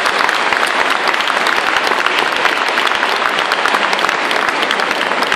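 Audience applauding steadily, a dense patter of many hands clapping at the end of a choir's song.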